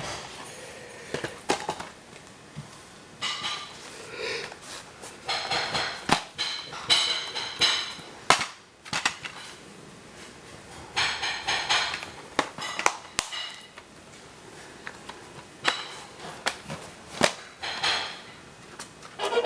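Irregular plastic clicks, knocks and short rustling scrapes from a VHS cassette and its case being handled.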